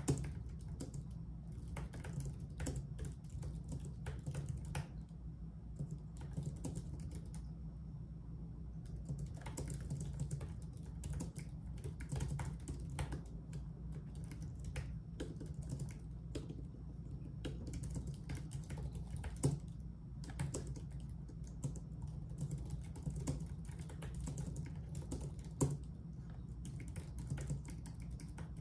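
Typing on a computer keyboard: irregular runs of keystroke clicks with a short pause about a quarter of the way in and a couple of harder key strikes later, over a steady low hum.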